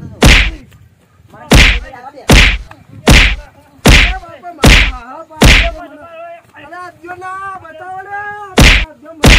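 A run of loud slapping blows in a scuffle: seven hits at an even pace, about one every 0.8 s, then two more in quick succession near the end, with a man's voice crying out in the gaps.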